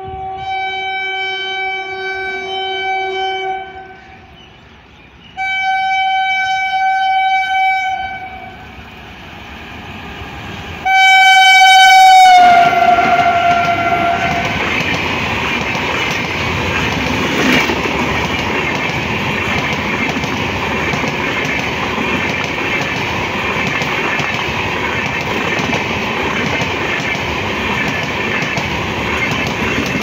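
A WAP-5 electric locomotive's two-tone air horn sounds three long blasts as it approaches. The last blast is the loudest and drops in pitch as the locomotive passes. The express's coaches then run steadily past at speed, with wheels clattering on the rails.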